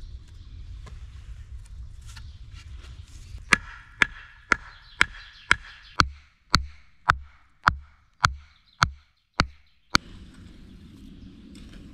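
Wooden stake being hammered into the ground: about a dozen sharp, evenly spaced knocks, roughly two a second, starting a few seconds in and stopping near the end.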